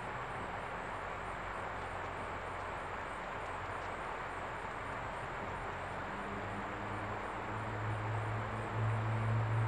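Steady outdoor background noise, joined about six seconds in by the low, steady drone of an approaching diesel locomotive's engine, growing louder toward the end.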